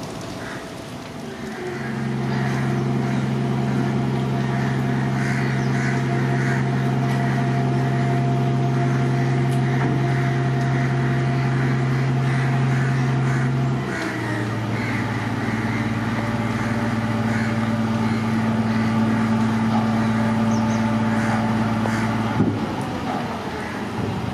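A train passing with a loud, steady low drone from the locomotive. The drone steps down in pitch a little over halfway through as it goes by, and ends near the end with a sharp knock.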